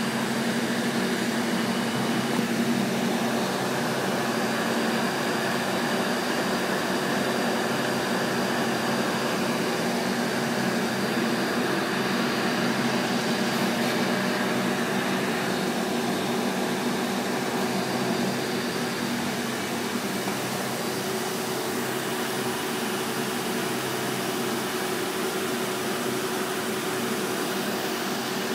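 Steady machine and air-handling hum of a semiconductor fab: an even rush of moving air with several steady hum tones layered in, unchanging apart from small shifts in level.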